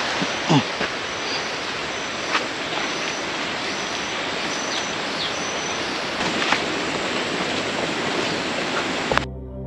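Steady rushing jungle ambience along a forest trail, with a few snaps and footsteps of hikers walking on leaf litter and a faint high chirp repeating about every two-thirds of a second. The sound cuts off suddenly into calm ambient music near the end.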